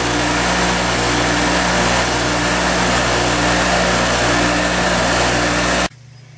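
Craftsman 8-inch, 1-horsepower bench grinder running at speed, a steady motor hum under the whir of the grinding wheel. It cuts off abruptly near the end.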